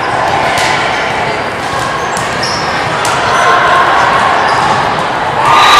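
Echoing gym noise at a volleyball match: chatter and calls from players and spectators, with scattered thuds and sneaker squeaks on the hardwood court. Voices rise into louder shouting near the end.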